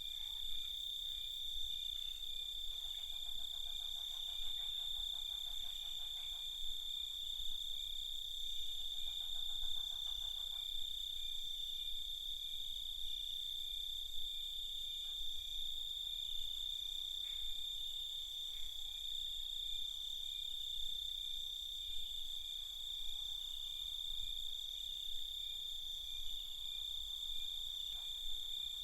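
Night chorus of crickets: a continuous, steady high-pitched trill. Twice, a few seconds in and again around ten seconds in, a fainter pulsing trill from another calling animal joins it for a few seconds.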